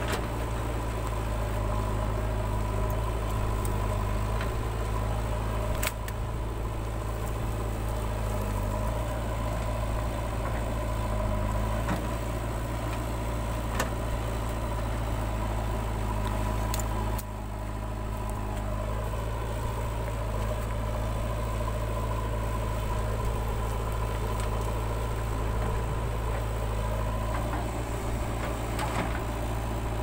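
Diesel engine of a JCB 3DX backhoe loader running steadily while its backhoe arm digs soil. There is a short sharp click about six seconds in and a sudden drop in level a little past halfway.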